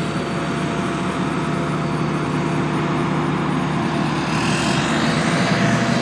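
Heavy road-construction machinery engines running steadily at a paving site, with a hissing rise in noise about four seconds in.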